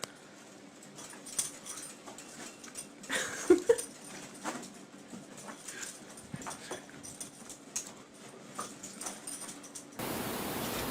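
A dog giving two short vocal sounds about three and a half seconds in, among light taps and rustles. Near the end the sound switches abruptly to a steady hiss.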